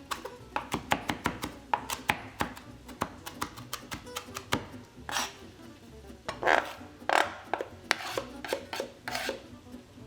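Chef's knife chopping fresh herbs on a cutting board in quick, irregular strokes, with a few longer scraping strokes past the middle.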